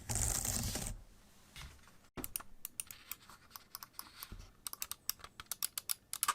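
Typing on a Logitech MX Keys low-profile scissor-switch keyboard: rapid, fairly quiet key clicks in quick runs. A short hissing rustle comes in the first second.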